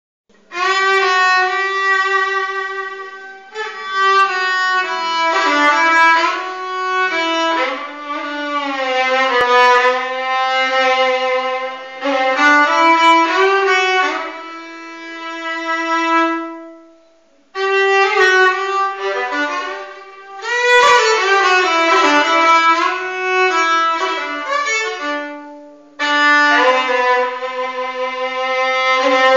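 Solo violin bowed in a slow, lyrical melody of long phrases with vibrato on the held notes. It breaks off briefly a little past halfway, then resumes.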